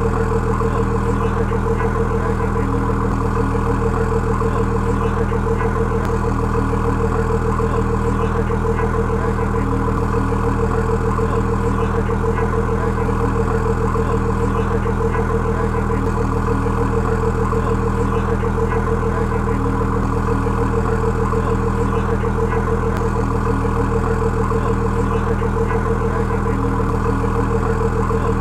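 2017 Ford GT's twin-turbocharged 3.5-litre V6 idling steadily, heard close behind its exhaust outlets.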